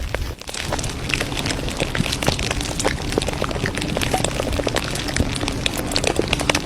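Dense, irregular crackling and popping, many sharp snaps a second, with a brief drop just after the start.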